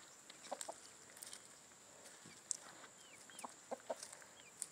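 Quiet chicken yard: a few soft, short, high chirps from the chickens in the second half, with scattered faint clicks.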